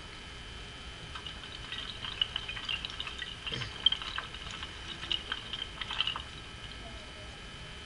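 Rapid, irregular clicking and clattering of domino-like tiles toppling in a long chain. It starts about a second in and stops about six seconds in, with one louder knock near the middle. A faint steady high whine runs underneath.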